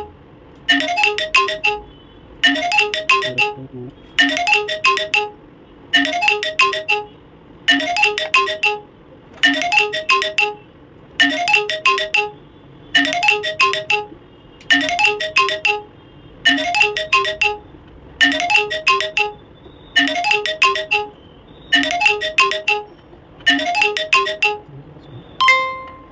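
A mobile phone ringtone: a short melodic phrase of quick notes repeating about every second and three-quarters. Near the end it gives way to a single steady beep.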